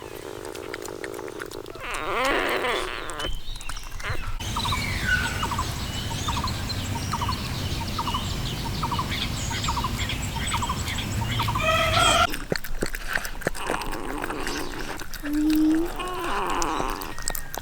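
Domestic chickens calling in a farmyard: scattered clucks and calls, with a run of short chirps about once or twice a second in the middle and a louder call about twelve seconds in.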